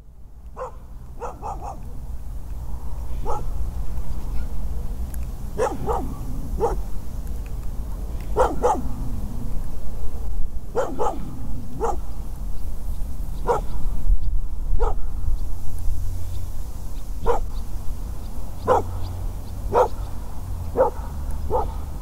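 A dog barking in a field recording: single barks and short runs of two or three, every second or two, over a steady low rumble.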